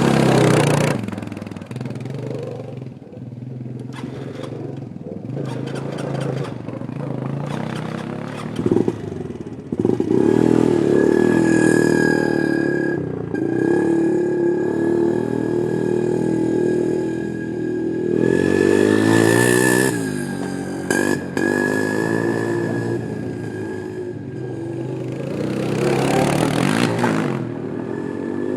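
ATV engine revving hard and dropping back several times, its pitch rising in surges about every nine seconds, with a few clattering knocks in between.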